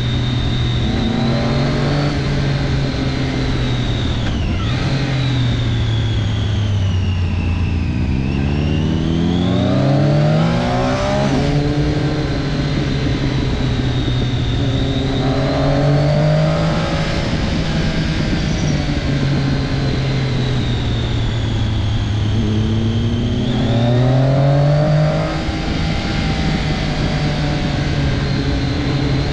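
Triumph Daytona 675's three-cylinder engine running hard under way, its pitch climbing under acceleration and dropping back again twice, with steady wind rush.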